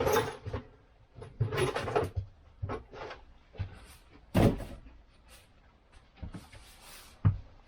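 Workbench handling noises from cleaning a scooter clutch part: short rustles and clatters of a rag and parts being handled, with a louder knock about four and a half seconds in and a sharp click near the end.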